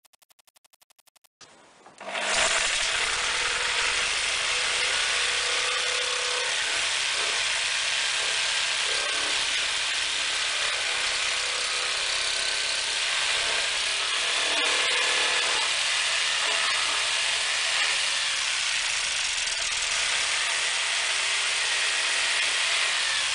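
A power tool running steadily without a break, starting about two seconds in.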